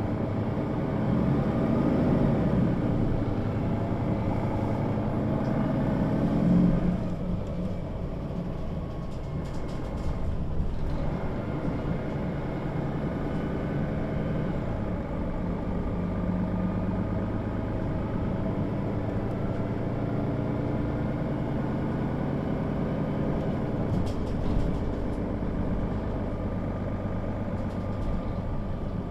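Diesel engine of a 2007 Mercedes-Benz O 530 G Citaro Facelift articulated bus with Voith automatic gearbox, heard from inside the passenger cabin. It rises in pitch and loudness over the first couple of seconds and holds. It drops off sharply about seven seconds in, then runs on steadily at a lower level.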